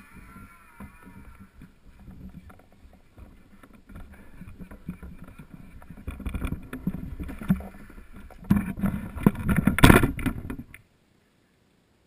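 Handling noise of a GoPro camera being moved and picked up: rubbing, rustling and knocks on the camera, getting louder about halfway through, with a burst of heavy knocks before the sound cuts off abruptly near the end.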